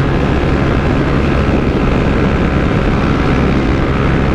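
Honda CB 300F Twister's single-cylinder engine running steadily at high revs in sixth gear at about 170 km/h, slowly losing a little speed as the road climbs, under constant wind rush.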